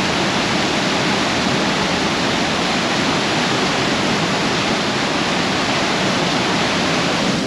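Steady, loud rush of a waterfall heard from close by at its top, a deafening, unbroken roar of falling water.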